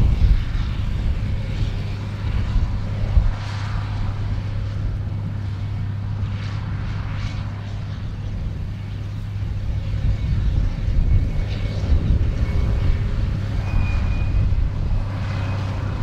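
Ford 8730 tractor's diesel engine running steadily under load as it pulls a Hesston big square baler through straw, a constant low drone mixed with the baler's working clatter.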